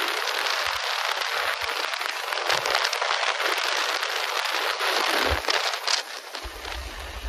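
Wind rushing and crackling over the microphone on a motorcycle at about 100 km/h. Near the end a low rumble joins in as the bike begins to slow.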